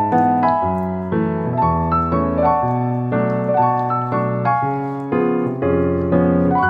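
Background piano music: a steady run of struck notes and chords, about two a second, each fading before the next.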